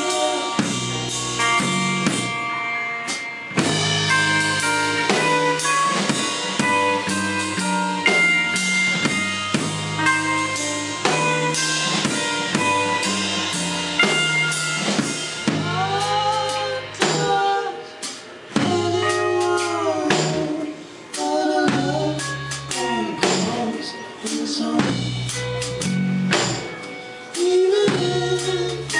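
A live rock band playing: electric guitars over a drum kit, with the playing breaking off briefly several times in the second half.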